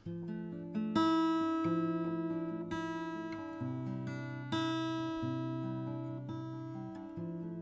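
Acoustic guitar opening a folk song: picked notes ringing into one another, with louder chords struck about a second in and again about four and a half seconds in.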